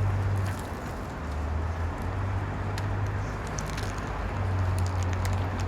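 Steady low hum over a constant wash of background noise, such as traffic or room machinery, with scattered small clicks; the hum dips briefly about a second in.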